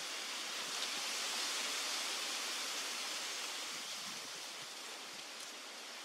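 Steady outdoor background hiss, a little louder about two seconds in and easing slightly toward the end.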